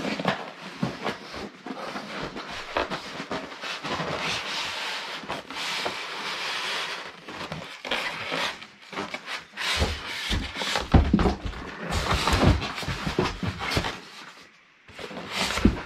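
Polystyrene foam packing inserts being worked out of a cardboard box: scraping, rustling and squeaking of foam against cardboard, with a run of louder knocks and thumps about two-thirds of the way through.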